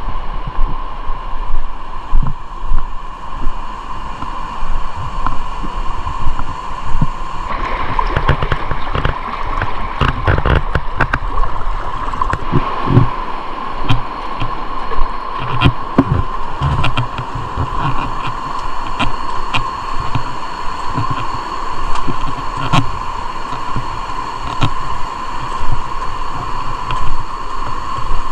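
Muffled rush of river water with dull low thuds, as heard by a camera underwater in a waterproof housing while spearfishing. From about a quarter of the way in, many sharp small clicks and ticks join the rush.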